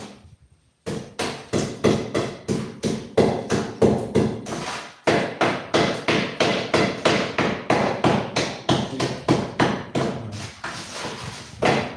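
Hammer striking repeatedly and steadily, about three blows a second, with a short break about five seconds in.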